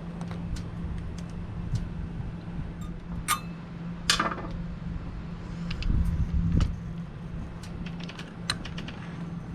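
Scattered sharp clicks, taps and small knocks of an RV keyless door lock's metal and plastic parts being handled and worked loose during removal, two louder clicks a few seconds in and a cluster of duller knocks about six seconds in, over a steady low hum.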